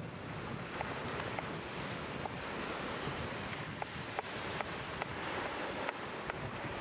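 Chef's knife chopping green peppers on a wooden cutting board: sharp taps about two or three a second, over a steady wash of surf and wind on the microphone.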